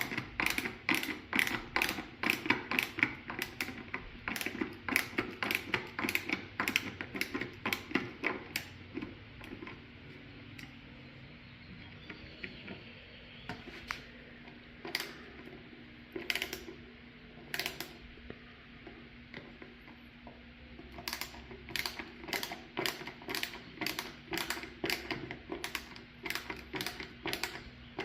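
Rapid, sharp clicking at several clicks a second as screws are driven to fix metal 90-degree angle brackets to a wooden router table fence. The clicking comes in two long runs, first and last, with only a few single clicks in the stretch between.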